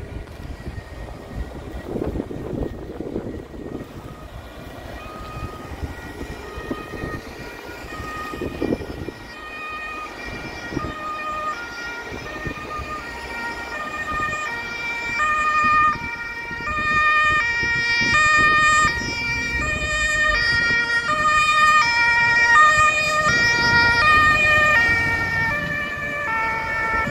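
Several German fire-brigade two-tone sirens sounding together out of step, faint at first and growing louder as the vehicles approach. The low running noise of the passing vehicles lies underneath.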